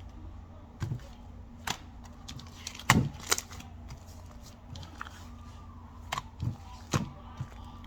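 Irregular light clicks and knocks, a dozen or so spread unevenly, the loudest about three seconds in, over a faint steady hum.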